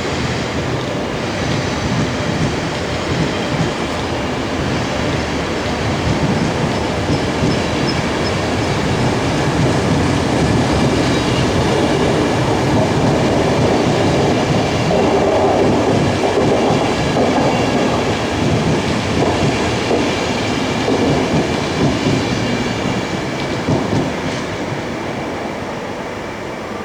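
ÖBB Taurus electric locomotive running on the rails, with wheels clattering over the track and faint steady high-pitched tones over the rumble. The sound swells to its loudest around the middle and eases off near the end.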